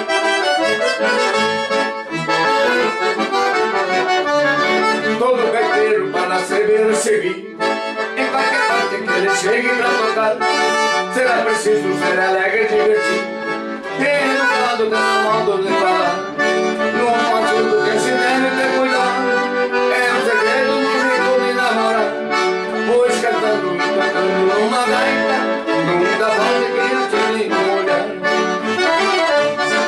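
Two piano accordions playing a tune together in duet, one carrying the melody over the other's chords.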